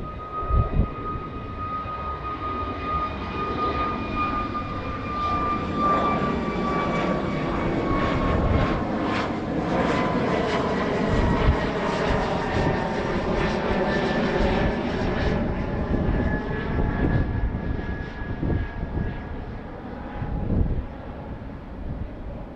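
Jet airliner flying past on landing approach. Its engine whine falls slowly in pitch as the engine noise swells to a peak midway and then fades. Wind buffets the microphone at the start and toward the end.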